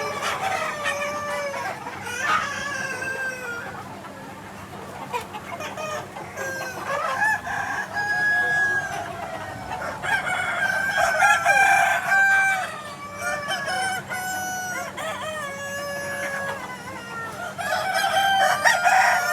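Free-range chickens: several roosters crowing, their calls overlapping, with hens clucking between them. The crowing is loudest through the middle and again near the end, over a faint steady hum.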